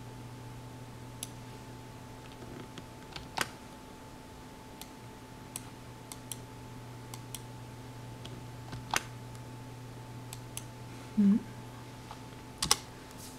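Slow, sparse typing on a computer keyboard: a dozen or so scattered key taps, a few of them louder, over a steady low hum. A brief low murmured sound comes about eleven seconds in.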